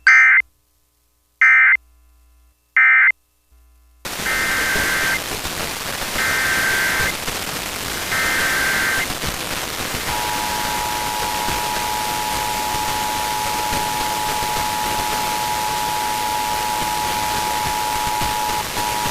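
EAS alert data tones: three short bursts of end-of-message data, then over a steady radio hiss three longer bursts of the next alert's header data. About ten seconds in, the steady two-tone EAS attention signal starts and holds, broken by a brief dropout near the end.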